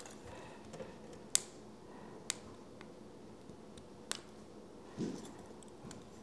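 Sharp clicks of 3D-printed plastic model parts being folded and snapped into place by hand, three of them, with a softer dull handling sound about five seconds in.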